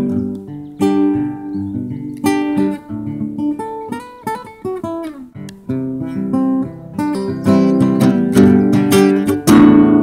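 Acoustic guitar played solo: picked notes and chords with a few notes sliding in pitch about halfway through, then fuller, louder strumming over the last few seconds.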